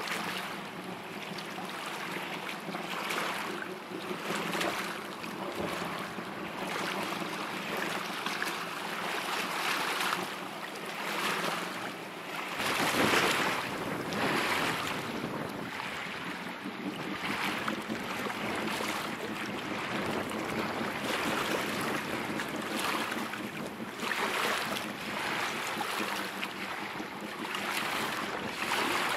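Wind gusting against the microphone in repeated swells over choppy water. A steady low motor hum runs underneath, clearest in the first half.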